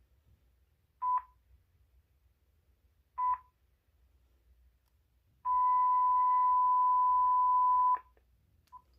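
Uniden TRU9488 answering machine beeping at one steady pitch: two short beeps a couple of seconds apart, then a long beep of about two and a half seconds, the machine's prompt tones during remote operation.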